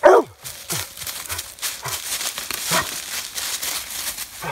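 A Treeing Walker hound gives one loud, falling bark right at the start, baying treed. Then brush and twigs rustle and crackle, with a few fainter barks now and then.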